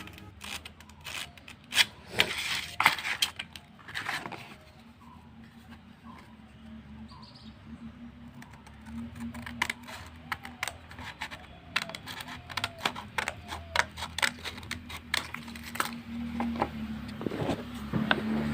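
Irregular light clicks and taps from objects being handled, with a faint low hum at times.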